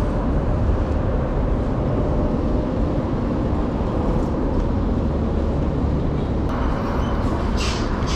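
Steady road-traffic noise beside a busy city street: a continuous low rumble of passing cars and scooters. A short hiss rises over it about seven and a half seconds in.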